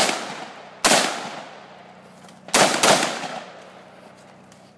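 Four shots from a semi-automatic AR-style rifle: one right at the start, one just under a second in, then a quick pair about two and a half seconds in, each followed by a fading echo.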